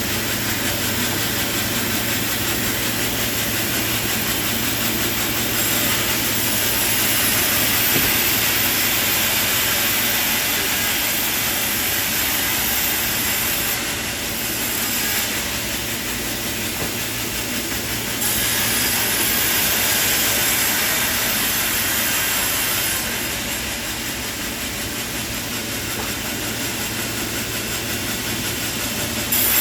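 Sawmill machinery running: a steady, loud, hissing mechanical noise whose character changes abruptly several times.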